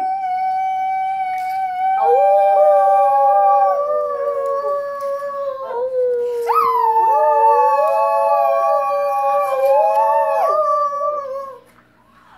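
Two young girls howling like wolves together: long, held howls that overlap, each new one starting with a swoop in pitch. The howling stops about a second before the end.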